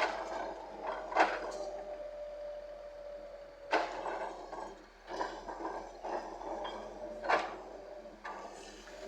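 Earthmoving machinery at work: several sharp metallic clanks with rough scraping between them, over a steady whine in the first few seconds.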